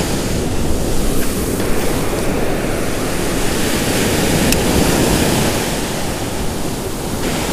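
Ocean surf breaking and washing up a sandy beach.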